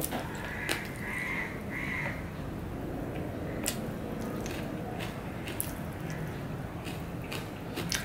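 A person chewing mouthfuls of soft rice eaten by hand: wet chewing and lip smacks, with scattered sharp mouth clicks. Three short higher-pitched sounds come about a second in.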